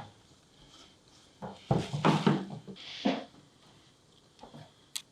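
Pipe fittings and an inline sprinkler valve being handled and fitted together: a quick run of knocks and short scraping clatters about a second and a half in, and a single click near the end.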